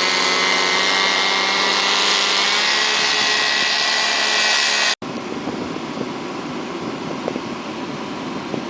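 A loud, steady machine engine running at high speed for about five seconds, then a sudden cut to quieter, lower engine noise with a rushing hiss.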